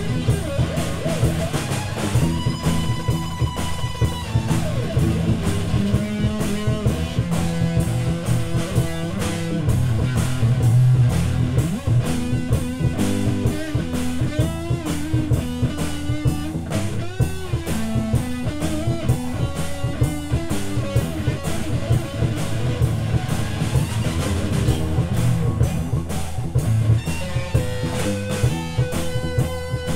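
Instrumental psychedelic rock jam: electric guitars playing shifting melodic lines, with a long held note about two seconds in and another near the end, over a steady drum kit beat.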